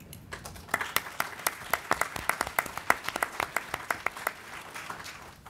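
Audience applauding, the claps picking up about a second in and dying away near the end.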